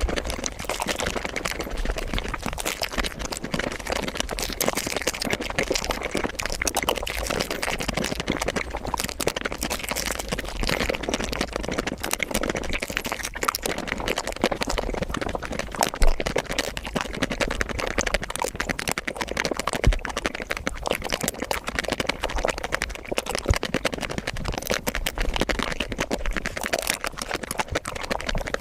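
Close-miked eating sounds of chocolate ice cream, sped up about five times: a dense, unbroken stream of rapid wet mouth clicks and smacks, with a couple of louder knocks about halfway through.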